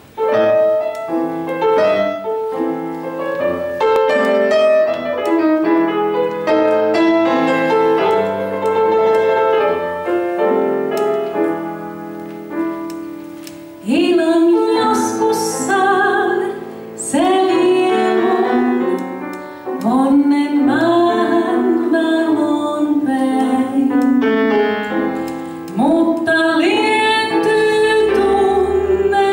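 Piano playing the introduction to a slow Finnish blues song; about fourteen seconds in, a woman begins singing in Finnish into a microphone, with the piano accompanying her.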